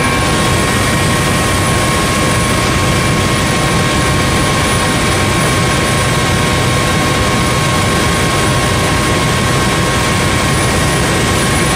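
Helicopter cabin noise in flight: a loud, steady rush and low rumble of rotor and engine, with a few constant high whining tones from the turbine.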